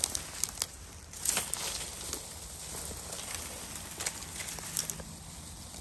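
Footsteps rustling and crunching through dry leaf litter and brush, with irregular snaps and crackles.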